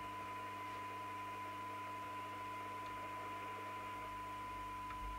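Steady test tone from the signal generator coming through the Nato 40FM CB radio's receiver, over hiss and a low mains hum. It is a weak signal of about half a microvolt, received while the receiver's transformer 5 is being tuned for alignment.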